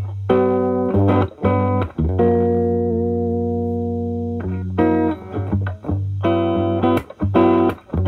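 Gibson SG electric guitar through an Ibanez TS9DX Turbo Tube Screamer overdrive in HOT mode, into a Marshall Valvestate amp's clean channel, playing overdriven chords. Short, choppy chord stabs come first, then one chord rings out for a couple of seconds, then more short stabs.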